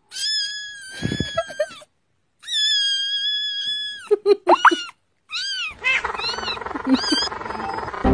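A very young kitten meowing in high, thin cries: two long drawn-out calls, then several shorter ones, with a steady hiss under the last few.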